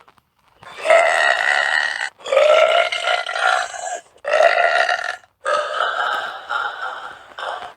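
A girl burping loudly: four long burps in quick succession, each lasting one to two seconds, with short pauses between them.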